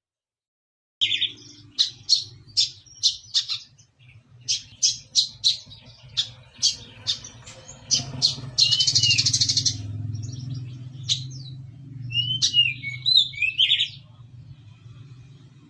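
Brown-throated sunbird singing. It gives sharp, high sparrow-like chips about twice a second, then a dense buzzy trill and short curving whistles, over a steady low hum. The song starts about a second in.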